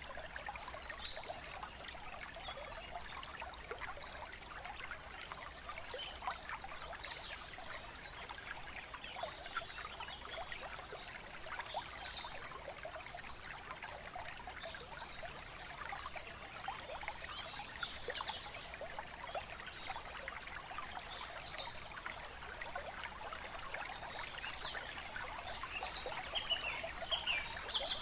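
Running water trickling steadily, with short high chirps recurring about once a second above it.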